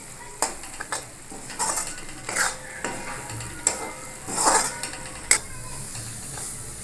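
A metal spatula stirring and scraping a thick spice-masala paste around a metal kadhai, with a scrape roughly every second over a steady sizzle of the masala frying in oil.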